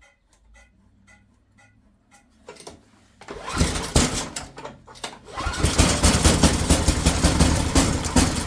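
A run of light, evenly spaced clicks, then the NOMA snowblower's 8-horsepower engine starts about three and a half seconds in, stumbles briefly, and settles into running steadily.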